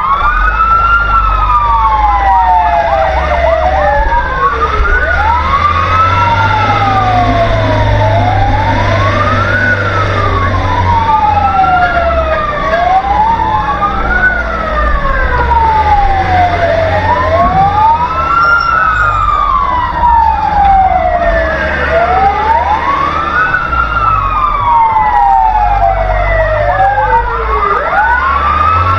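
Fire engine sirens wailing, several of them sweeping up and down out of step, each rise and fall taking about four seconds, over a steady low rumble from the moving truck.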